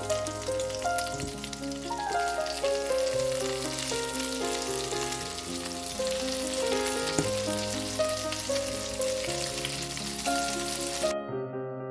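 Tuna and egg patties sizzling in hot oil in a non-stick frying pan, with light scrapes of a spatula as they are turned over; the sizzling cuts off suddenly near the end. Gentle piano music plays throughout.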